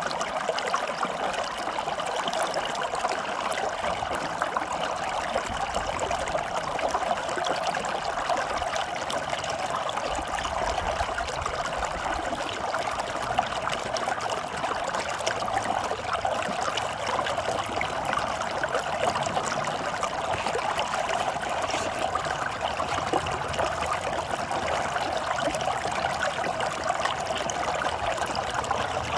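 Running water flowing steadily, like a small stream or trickle, with an even, unbroken rush.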